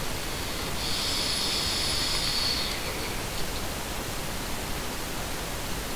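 Single twisted 22-gauge coil in a dripping atomizer sizzling, with air hissing through it, during one vape draw of about two seconds that starts about a second in and stops sharply.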